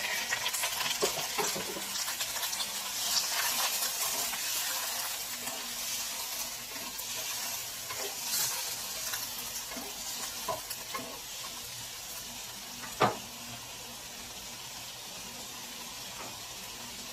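Raw shrimp sizzling in hot oil in a nonstick wok while a spatula stirs and scrapes them against the pan, with scattered clicks. A single sharp knock comes about 13 seconds in, after which the stirring stops and the sizzle settles to a steadier, quieter hiss.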